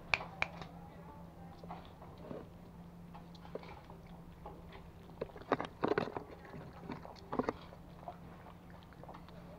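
Pomeranian puppies lapping water from a stainless steel bowl: irregular wet clicks and smacks, with a few louder clusters past the middle. A couple of sharp clicks at the very start, as the metal bowl is set down on the wooden floor.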